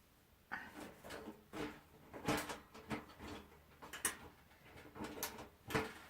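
Knocks and clinks of metal grill parts being handled and fitted together while a portable propane grill is assembled, a few sharper knocks among softer ones.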